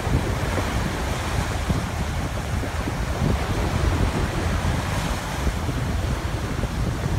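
Small waves breaking and washing up on a sandy shore in a steady rush, with wind buffeting the microphone.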